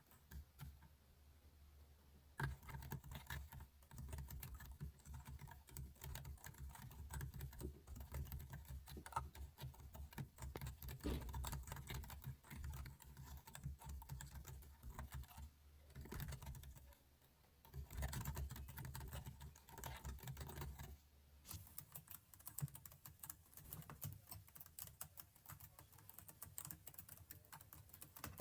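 Computer keyboard keys clicking in quick, irregular runs of keystrokes, with short pauses between the runs.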